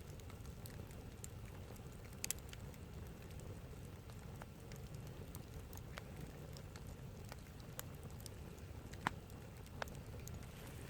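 Wood campfire burning and crackling, with scattered small crackles and a few sharper pops, the loudest about two seconds in and about nine seconds in.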